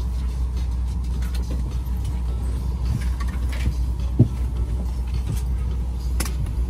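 Steady low rumble inside a Boeing 737-800 cabin, with scattered light rustles and clicks and one sharp knock about four seconds in.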